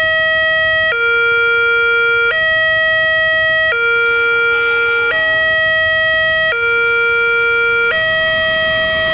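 Electronic level-crossing warning alarm sounding a two-tone hi-lo signal, switching between a higher and a lower tone about every 1.4 seconds. It means a train is approaching and the barriers are down.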